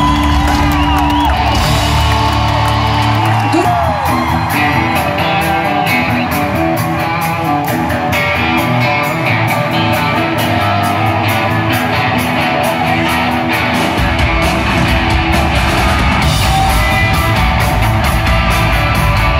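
Live rock band playing on stage, heard from the crowd: electric guitar and singing over drums with a steady beat. The low end fills out about three-quarters of the way through.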